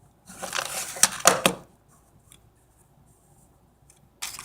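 Toy packages being handled and set down on a table: about a second of rustling with a few light knocks, and another short rustle near the end.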